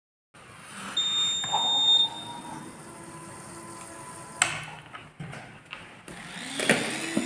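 A high, steady electronic beep from a buzzer sounds for about a second, with a fainter lower tone lingering after it, followed by a few knocks and clicks.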